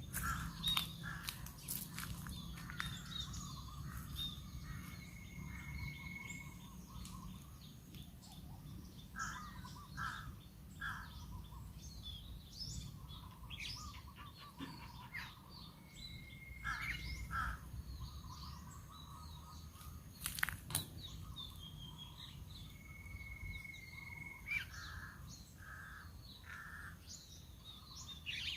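Several wild birds calling over steady outdoor background noise: clusters of short repeated notes, with a drawn-out whistled note that comes back about three times. A single sharp knock about two-thirds of the way through.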